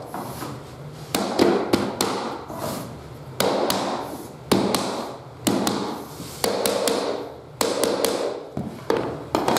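A hammer tapping a metal pull bar hooked over the end of a click-together laminate plank, knocking the end joint closed so it locks in. About a dozen sharp taps, roughly one a second with a few quick doubles, each followed by a brief ring.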